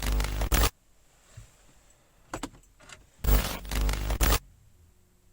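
BMW diesel's starter motor cranking the engine in short bursts that stop without the engine catching: one crank cuts off just under a second in, a few light clicks follow, then a second crank of about a second. A hard cold start blamed on a bad relay.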